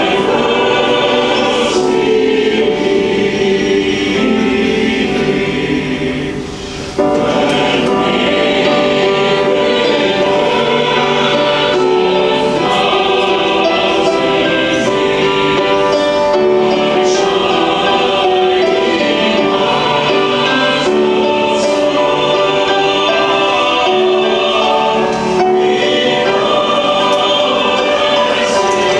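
Choir singing a slow hymn, voices holding long notes, with a brief softer moment about six seconds in.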